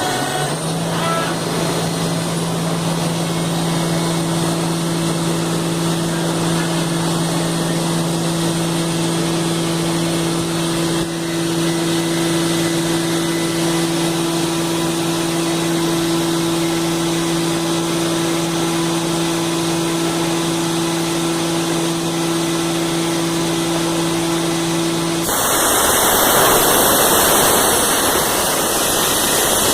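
CNC machine running, a steady low hum over a noisy mechanical background; about 25 seconds in the hum stops and a louder hiss takes over.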